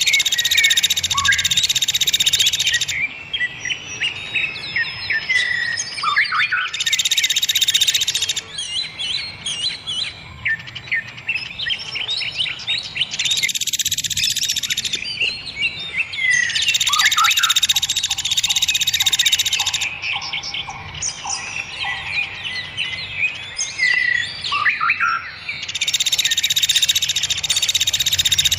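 Several songbirds singing together: a long, loud buzzing trill comes in blocks of two to three seconds, five times, with quick chirps and rising and falling whistles between them and a short run of even lower notes in the middle.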